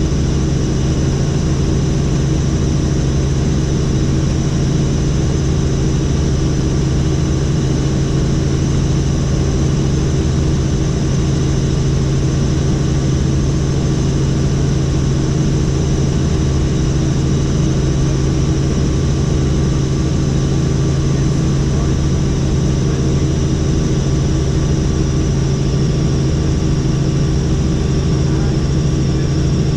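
Helicopter in steady flight, its engine and rotor giving a loud, constant drone with a deep hum that does not change.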